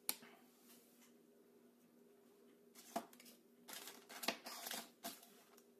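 Faint handling noise of a vinyl toy figure and its plastic packaging: a few sharp clicks and a short crinkly rustle of plastic about four seconds in.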